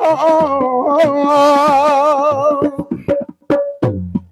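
A man's voice singing a Punjabi folk song, drawing out one long note with a strong vibrato. In the last second and a half the note ends and a few sharp percussive taps follow.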